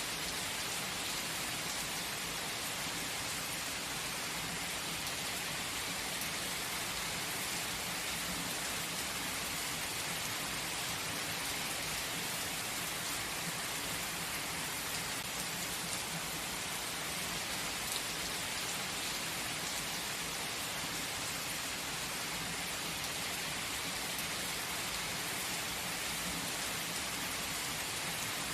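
Steady gentle rain falling, an even hiss with scattered drops ticking on surfaces.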